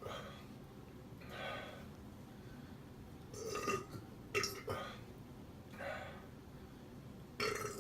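A man burping several times in short bursts, with breaths in between, from gas brought up while chugging a full 40-ounce bottle of carbonated malt liquor.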